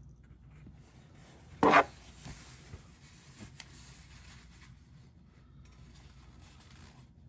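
Paper towel wiping up oil: one short, loud scraping rub about one and a half seconds in, then faint rubbing with a few light ticks.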